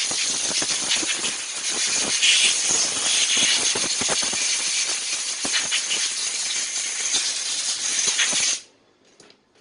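Compressed air from a blow gun blasting dust out of an electric drill: a loud, steady hiss with irregular crackles, cutting off sharply about a second before the end.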